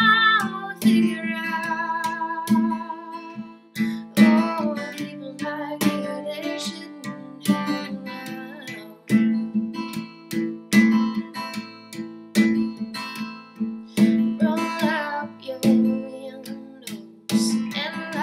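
Acoustic guitar played solo: plucked and strummed chords in a slow, even rhythm, notes ringing between strokes. A sung note with vibrato is held over the guitar for about the first second.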